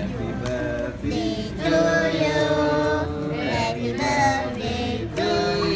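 Children and women singing a song together.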